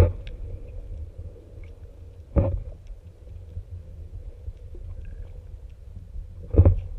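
Muffled low rumble of water around a camera held underwater, with two dull knocks, one about two and a half seconds in and one near the end.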